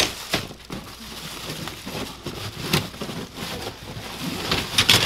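Plastic wrapping crinkling and rustling as bagged embroidery hoops are handled and stacked out of a cardboard box, with a few light knocks and clicks scattered through it and a cluster near the end.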